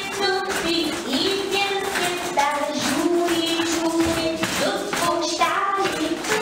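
A children's song: a sung melody of held notes over light rhythmic tapping and shaking of small hand percussion.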